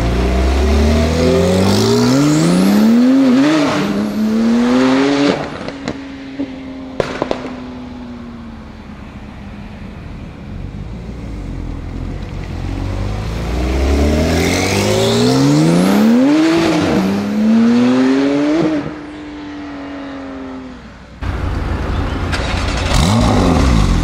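Tuned Porsche 991 Turbo S twin-turbo flat-six accelerating hard twice, its revs rising and dropping at each upshift, with a few sharp exhaust cracks after the first run as it fades away. Near the end it gives way to a low, steady idle.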